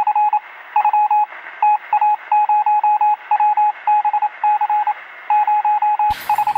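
Electronic beeping of a single pitch, keyed on and off rapidly in irregular groups of short and longer pulses like Morse code. It has a thin, telephone- or radio-like sound.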